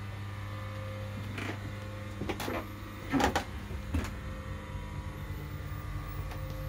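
Steady electric hum of a Myford Super 7 lathe running, with a few sharp knocks and clatters about one and a half to four seconds in.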